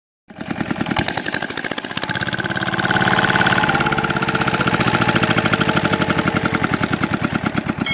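Small engine running steadily, driving a water pump that is draining a pond, with a rapid even firing beat and a steady whine; it grows louder after about two seconds.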